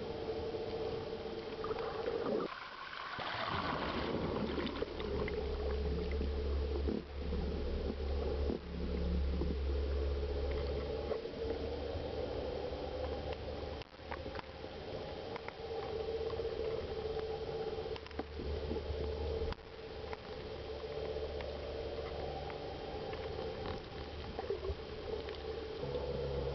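Tow boat's engine droning steadily, heard underwater, with water rushing past the diver on the hydroplane. About two and a half seconds in, the low drone drops away briefly under a burst of hiss and bubbling, then returns.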